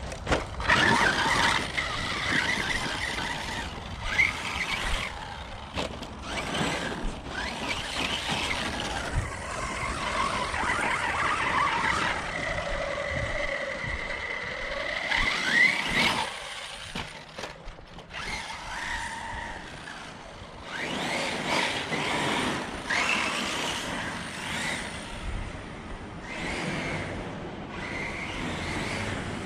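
Brushless motor of an Arrma Notorious 6S RC truck (1250kv Spektrum) whining. The whine rises and falls in pitch several times as the truck speeds up and lets off, over the noise of its tyres on rough ground.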